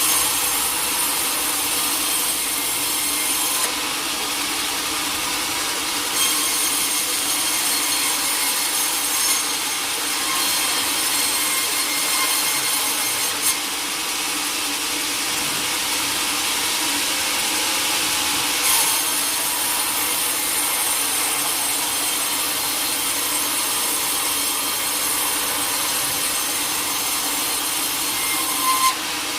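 Sawmill saw cutting steadily through a teak log, a continuous running sound with a few steady tones, its high hiss easing off briefly and coming back several times.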